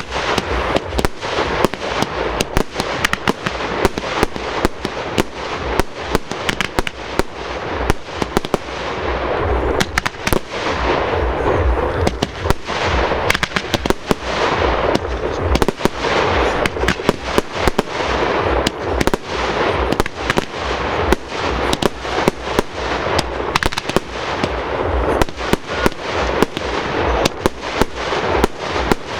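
Fireworks display: shells bursting in rapid, irregular bangs, several a second, over a continuous crackling din.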